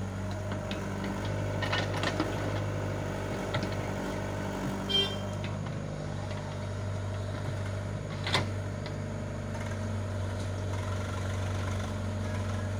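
Steady diesel engine drone of a tracked excavator working, swinging its bucket between digging and dumping soil into a tractor trolley, with a few sharp metallic knocks, the loudest about eight seconds in.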